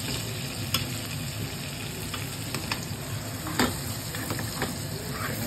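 Sirloin steak frying in butter with garlic cloves, sizzling steadily, while a metal spoon bastes it and clinks against the pan several times, loudest about three and a half seconds in.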